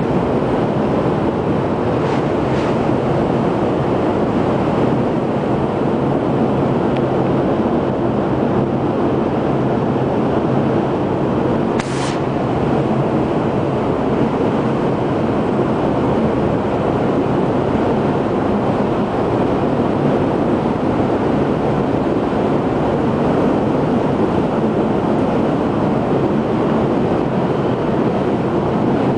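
Hurricane-force wind and driving rain and spray blowing steadily across a ship's open deck, a loud constant rushing noise with wind buffeting the microphone and a faint low steady hum beneath. A brief sharper hiss comes partway through.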